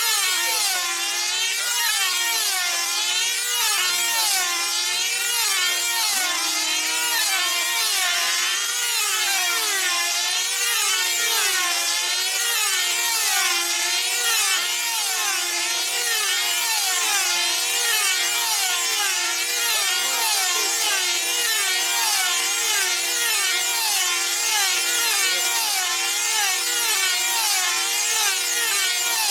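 Several F2C team-race control-line model aircraft engines, small 2.5 cc diesels, running flat out together as a high, steady whine. Each engine's pitch rises and falls in waves as its model circles the pilots.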